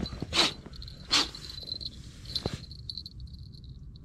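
Small fishing bite bell tinkling faintly as it is hung on the line, a thin high ringing that flutters on and off. Two loud rustles of gloved hands handling the gear come in the first second or so.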